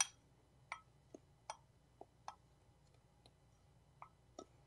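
Metal fork clinking against a white ceramic bowl while stirring a crumbly brown sugar topping. It makes a string of light, sharp ticks, about two a second, at uneven spacing.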